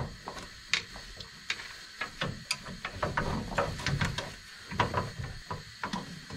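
Front coil spring of a Jeep Wrangler being worked into its seat by hand, with scattered light metallic clicks and knocks as the coils shift against the suspension mounts.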